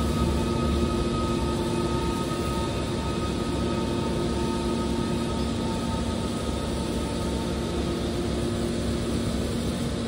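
Hydraulic scrap-metal baler's pump and motor running, a steady hum with a few constant whining tones over an even rushing noise.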